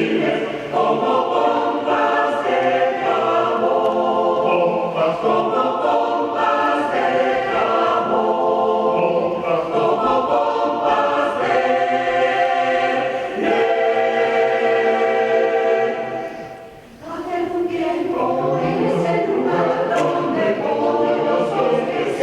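A choir singing a piece in harmony, with a brief break about sixteen seconds in before the voices come back in.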